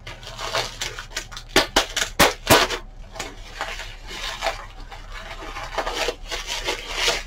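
Hands rummaging through and handling packaged groceries in a box: packaging rustles and crinkles, with several sharp clicks and knocks about one and a half to two and a half seconds in.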